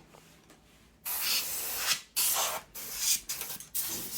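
Can of compressed air spraying in bursts: one long blast about a second in, then four or five short puffs.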